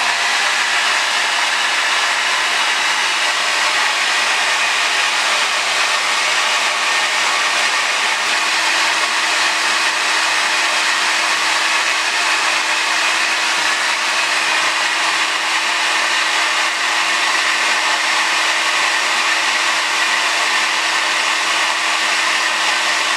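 Handheld hair dryer running steadily: a loud, even rush of air over a constant motor hum.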